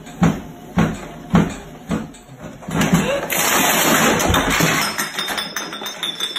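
Bare feet thudding on a running treadmill belt, about two steps a second, then about three seconds in a loud crash and nearly two seconds of rough clattering noise as the runner falls onto the machine.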